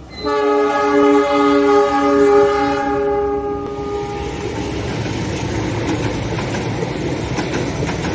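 Diesel locomotive horn sounding one long chord of several steady notes for a little over three seconds, followed by the rumble of the train running past close by.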